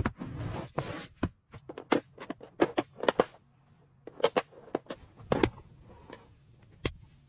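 Irregular sharp clicks and knocks, a dozen or so, with short scraping noises between them; they thin out over the last second or two.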